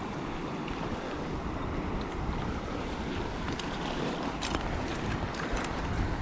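Mountain stream water rushing, with wind buffeting the microphone as a fluctuating rumble. Several faint clicks in the second half.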